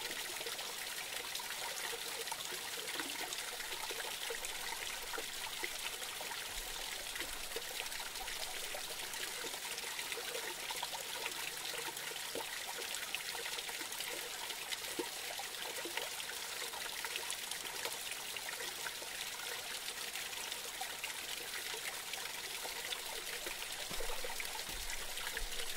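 Small forest creek trickling and splashing as it spills over a low drop beneath a fallen log. A steady babble of running water, flecked with many small drips and splashes.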